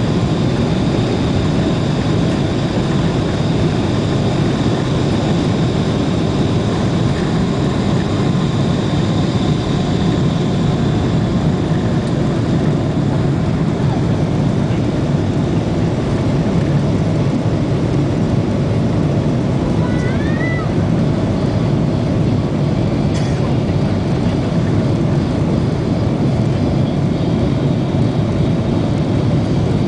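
Boeing 777 jet engines and airflow during takeoff: a loud, steady roar with a faint high whine that fades about twelve seconds in. A short whistling chirp comes about twenty seconds in, and a sharp click a few seconds later.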